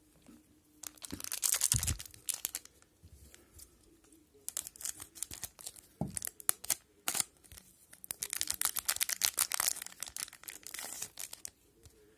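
Wrapper of an O-Pee-Chee hockey card pack being torn open and crinkled by hand in several bursts of crackling.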